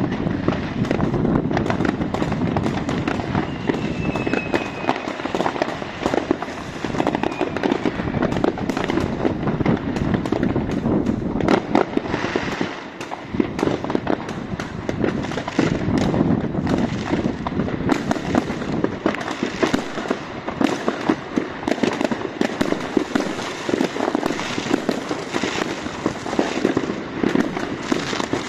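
Fireworks and firecrackers going off in a dense, unbroken series of bangs and crackles. A brief faint whistle rises out of it about four seconds in.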